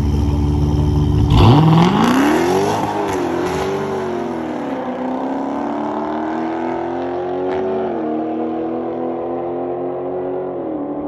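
Car engine revved hard about a second and a half in, the pitch wavering, then pulling under hard acceleration with the tone climbing steadily and dropping twice at upshifts.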